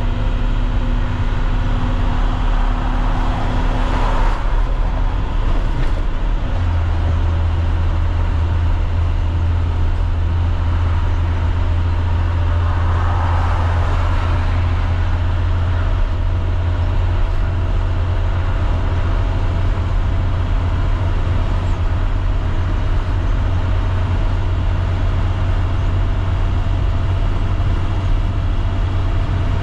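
MaxxForce DT inline-six diesel of an IC CE school bus running steadily at highway cruising speed, heard inside the cab as a strong low drone over tyre and road noise. A brief rush of noise from a vehicle passing alongside comes about 13 seconds in.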